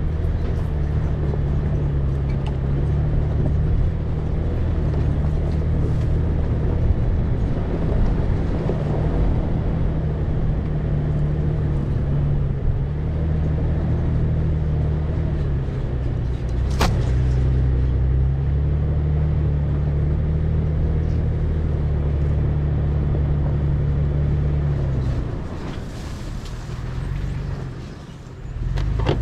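Toyota FJ Cruiser's 4.0-litre V6 running steadily under load as it climbs a dirt trail, with a broad rush of tyre and road noise. About two-thirds of the way through there is one brief sharp click, and near the end the engine note drops and quiets briefly before picking up again.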